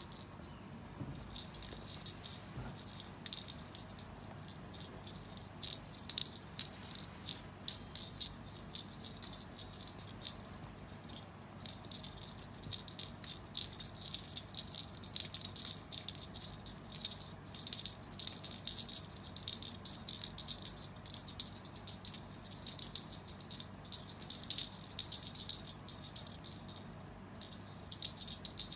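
A small metal jingling rattle shaken in quick, irregular bursts, bright and clicky, with a short pause about halfway through and another near the end.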